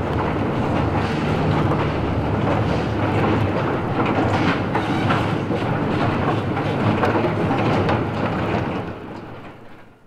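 Steady rushing, rumbling mechanical noise with scattered clatter, fading out over the last second or so as a sound-effects track ends.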